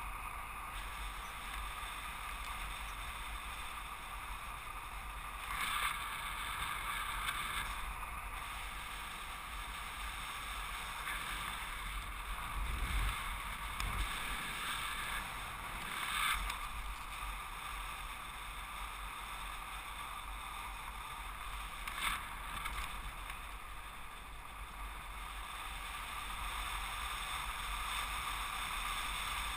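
Steady rush of wind over the camera of a paraglider in flight, swelling in short gusts a few times.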